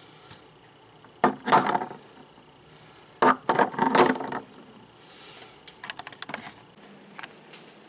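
Household objects being handled: two bursts of rattling and clinking, then a few light clicks.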